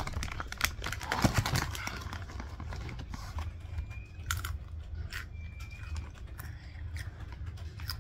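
Keropok crackers being bitten and chewed close to the microphone: a run of sharp, irregular crunches, densest about a second in.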